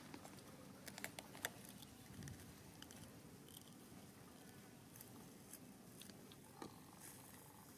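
Near silence with a few faint, short clicks and crackles, grouped about a second in and again between five and seven seconds in: dry grass and leaves being handled by a baby macaque.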